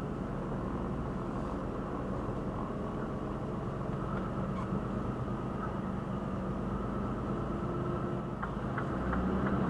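Articulated lorry's diesel engine running steadily, heard from inside the cab.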